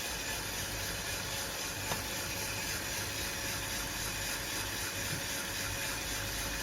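Aillio Bullet R1 coffee roaster running steadily: the even rush of its fan with the beans tumbling in the rotating drum, during the drying phase before the beans turn yellow. A faint click comes about two seconds in.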